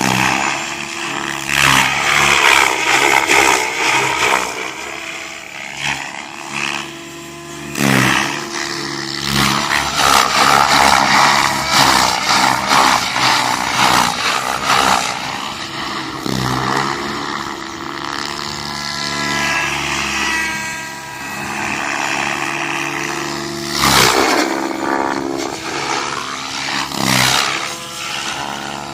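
Goblin 700 electric RC helicopter flying 3D: its rotor blades and electric motor give a loud whine whose pitch bends up and down as it passes and maneuvers. Brief broad whooshes come every few seconds, typical of wind hitting the microphone.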